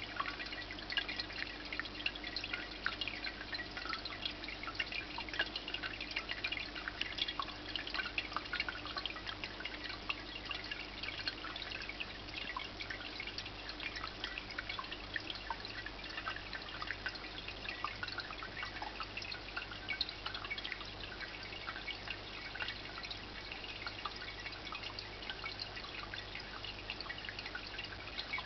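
Indoor water fountain trickling and dripping, a steady stream of small splashes and drops that never lets up.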